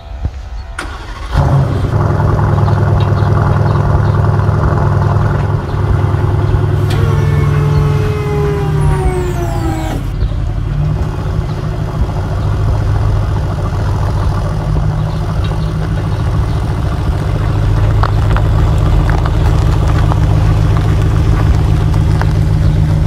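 Large vehicle engine starting about a second in, then running steadily with a deep drone. A whine falls in pitch for a few seconds around the middle.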